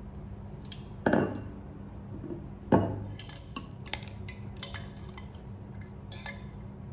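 Two sharp knocks on a glass saucepan, each ringing briefly, then a quick run of light clinks as metal chopsticks stir instant noodles against the glass.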